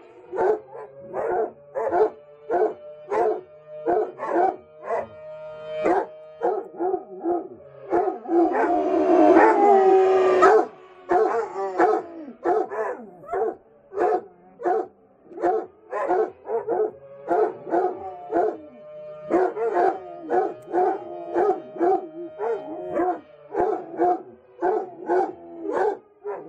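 Basset hounds barking over and over, about two barks a second, breaking into a longer, louder howl about eight seconds in. Behind them a fire department siren holds a steady pitch.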